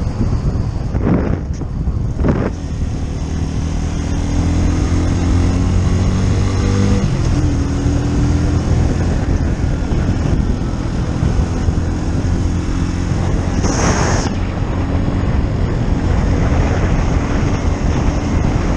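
Keeway Superlight 125 motorcycle's small V-twin engine pulling hard, its pitch rising for a few seconds, then a gear change about seven seconds in and steady cruising, with wind rushing over the microphone. A short, loud rush of noise comes about fourteen seconds in.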